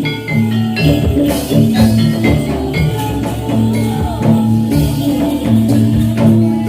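Live Javanese gamelan music with struck bronze metallophones and drums playing a steady, repeating pattern, the accompaniment for a jathilan/gedruk folk dance.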